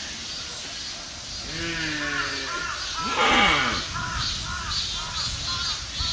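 Deer calling: a falling, pitched call, then a louder harsh call about three seconds in, followed by a run of short, high repeated calls about two or three a second.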